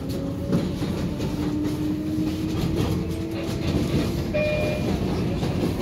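R142A subway car running on elevated track, heard from inside the car: a steady rumble with scattered clicks from the wheels and a faint thin whine above it.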